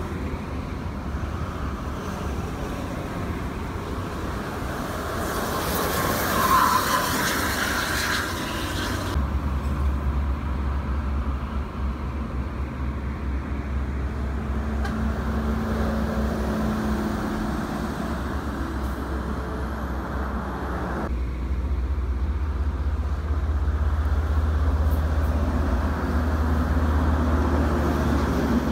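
Toll-road traffic: buses and trucks driving past at speed, their tyre and engine noise swelling as each one passes, loudest about a third of the way in. The sound changes abruptly twice.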